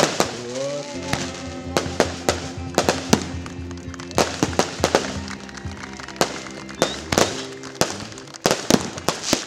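Fireworks going off in many sharp, irregular bangs, several a second, with music playing underneath.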